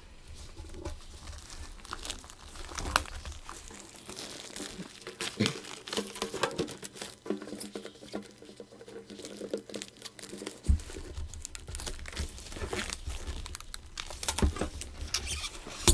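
Plastic shrink wrap being peeled and torn off a metal Yu-Gi-Oh card tin: irregular crinkling and crackling with sharp tearing snaps, getting louder and busier near the end.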